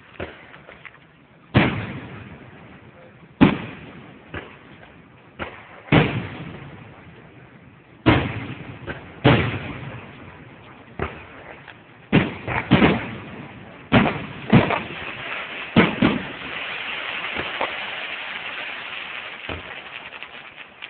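Aerial fireworks shells bursting overhead: about fifteen sharp booms, each with a decaying echo, coming faster in the second half. Near the end there are several seconds of steady crackling hiss.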